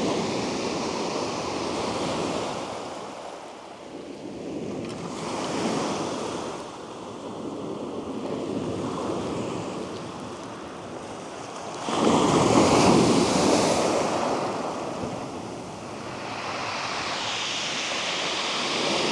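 Waves breaking and washing up a shingle beach, swelling and fading every few seconds, with a louder wave about twelve seconds in. Some wind noise on the microphone.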